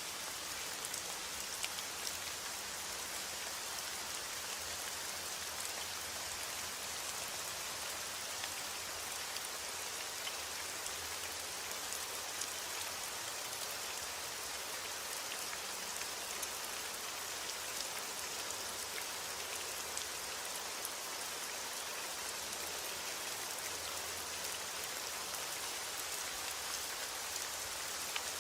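Steady rain falling, a dense hiss with many small drop ticks on a surface, and no thunder.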